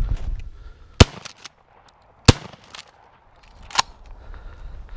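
Shotgun fired, very loud and close: two shots about a second and a quarter apart, then a third, fainter sharp crack about a second and a half later.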